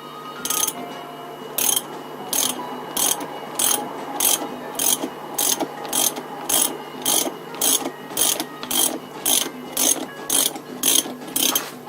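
Ratchet wrench clicking in a steady rhythm, about two ratcheting strokes a second, as it turns a stud extractor to back out a stud.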